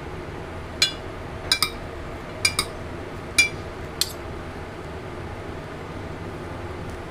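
Metal spoon clinking against a plate while tossing a salad: about seven sharp clinks over the first four seconds, some in quick pairs, then only low background noise.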